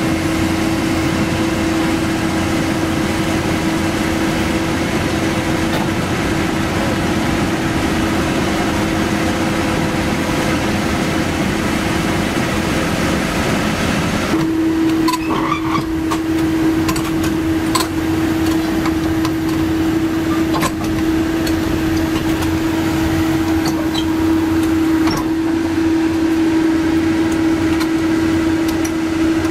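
Doosan DX225LCA excavator's diesel engine running steadily with a constant droning tone. The sound changes abruptly about halfway, and a few short metal clanks are heard over the engine after that.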